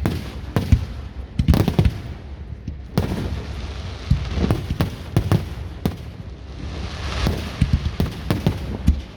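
Fireworks going off in an irregular run of sharp bangs and deeper booms, with stretches of dense crackling between them.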